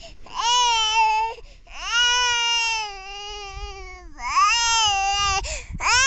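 Toddler crying: four long, high-pitched cries in a row with short catches of breath between, the second the longest at over two seconds.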